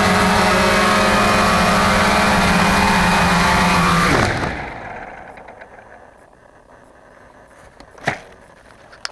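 Cheerson CX-20 quadcopter's brushless motors and propellers whining steadily at close range, then spinning down with a falling pitch about four seconds in as it lands and the motors stop. A single sharp click follows near the end.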